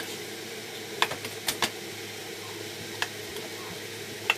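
Plastic spoon stirring vegetables in a stainless steel pot, knocking against the pot's side in about five sharp clicks, over a steady low hum.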